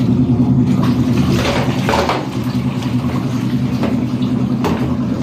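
Twin tub washing machine's wash motor running steadily with a low hum as its agitator churns clothes in soapy water, with a few short swishes of water about one to two seconds in and again near the end.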